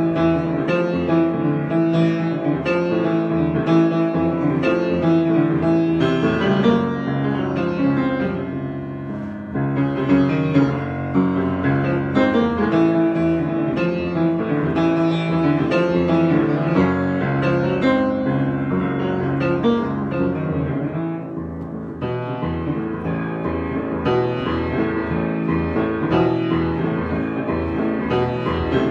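Improvised piano playing: sustained chords and melody in flowing phrases, with a brief lull about a third of the way through and another near the three-quarter mark.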